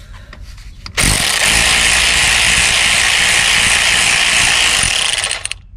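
Cordless ratchet running steadily for about four and a half seconds, spinning out the E10 bolt on a turbo oil feed line; it starts suddenly about a second in and cuts off near the end.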